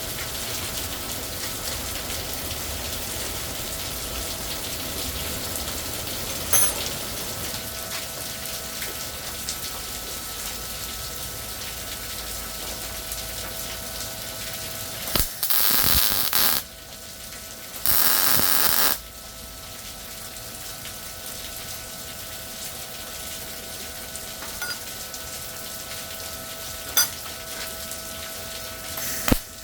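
MIG welder laying a continuous bead, a steady crackling sizzle with a faint steady hum beneath it. About halfway through come two short, louder hissing bursts, one right after the other.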